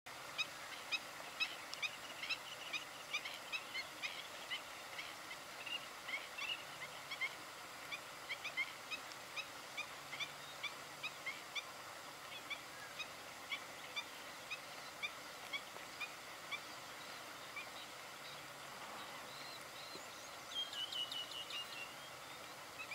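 Many short, high bird calls, several a second, thinning out after the middle, with a quick rattling trill near the end, over a steady background hiss.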